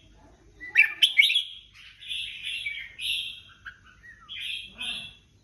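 Red-whiskered bulbuls singing in chorus: short bright whistled phrases and chirps, several overlapping, beginning about a second in after a brief lull.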